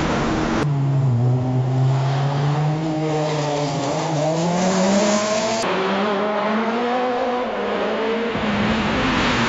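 Car engine accelerating, its pitch rising slowly, in spliced sound-effect segments that change abruptly about a second in and again about halfway through.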